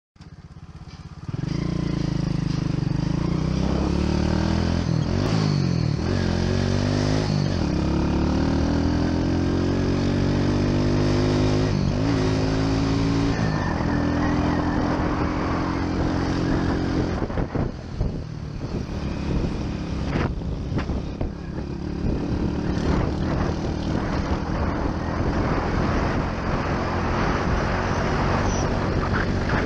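Small motorbike engine running while riding, its pitch dipping and climbing again several times as the revs change. In the second half a rougher rushing noise grows over the engine.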